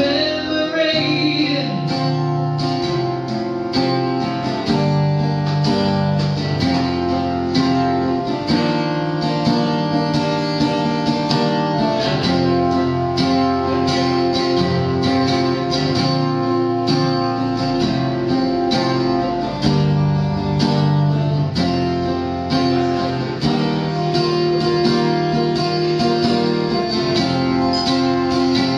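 Solo acoustic guitar strumming chords in a steady rhythm, the chords changing every second or two.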